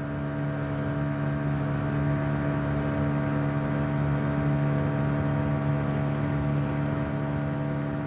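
Small boat's outboard motor running steadily under way, a constant low drone that holds one pitch.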